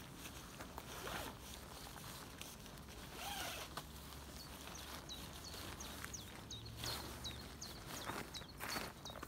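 Nylon-type tent flysheet rustling and crinkling as it is pulled and arranged over the tent frame, in irregular short swishes.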